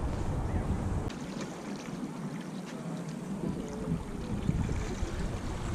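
Wind buffeting the microphone, easing off about a second in and picking up again around three seconds, with a few faint ticks.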